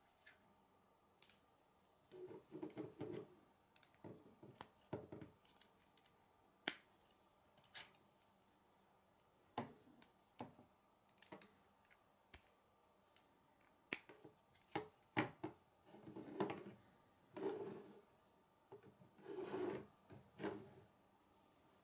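Plastic K'nex rods and connectors being handled and snapped together by hand: scattered sharp clicks as pieces lock in, with short bursts of plastic rattling and rubbing as parts are fitted.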